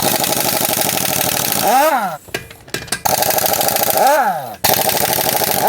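Impact wrench hammering in three rapid bursts, loosening the wheel's lug bolts, its motor pitch gliding up and down in the short gaps between bursts.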